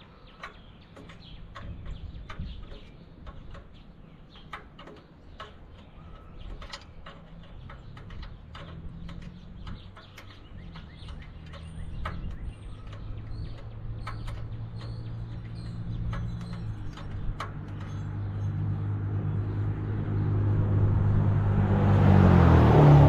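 Scattered light clicks and taps of hand tools and small metal parts being handled around the engine's wiring, with birds chirping. Over the last several seconds the hum of a passing motor vehicle grows steadily louder and peaks just before the end.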